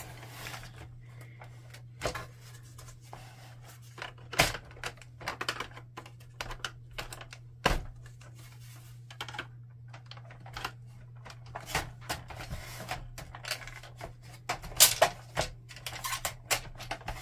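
Irregular plastic clicks and knocks from the Canon PIXMA TS5120 printer's plastic housing panels as they are pushed, handled and worked off their clips. The clicks come thicker and louder near the end, over a steady low hum.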